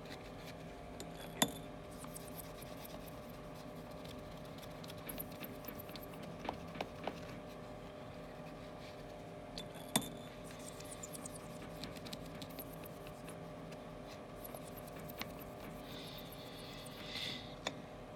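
Faint intermittent scratching and rubbing of a melamine sponge on an LCD panel's glass, with a few sharp clicks, about 1.5 s and 10 s in, over a steady hum of the room's extraction fans.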